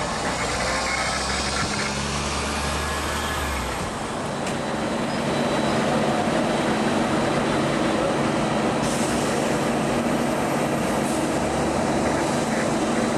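Fire engine's engine running steadily, growing louder at about five seconds in and then holding steady.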